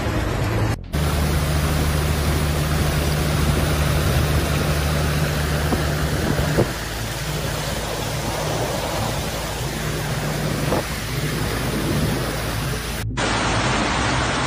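Steady rushing noise of muddy floodwater pouring along a road, with a low steady hum in the first few seconds that stops about halfway through.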